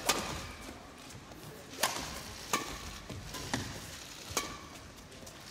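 Badminton rally: sharp cracks of rackets striking a shuttlecock, about five hits at irregular intervals, each ringing briefly in an echoing hall.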